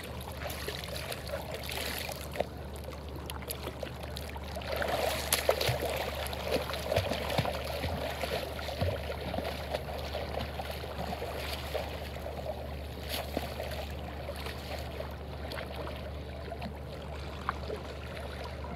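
Seawater lapping and sloshing close by at the water's edge, with splashing from a snorkeler swimming away, busiest from about five to ten seconds in.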